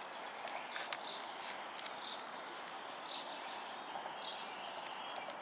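Small birds chirping in short, scattered high calls over a steady outdoor background hiss, with a couple of faint clicks in the first second.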